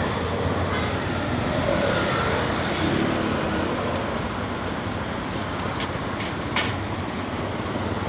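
Steady street traffic noise of passing motor vehicles, with a short sharp click about six and a half seconds in.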